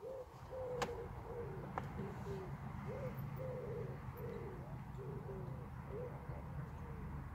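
A bird calling in a run of short, low notes, roughly one every half second, over a steady low rumble, with a couple of sharp clicks in the first two seconds.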